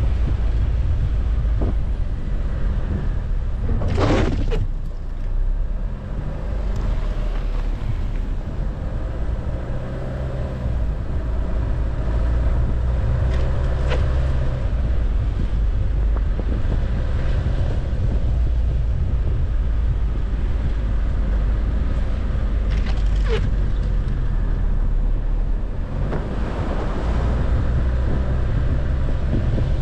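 Car driving slowly on a snow-covered street, a steady low rumble of engine and tyres on snow. Two brief sharp sounds stand out, one about four seconds in and another about twenty-three seconds in.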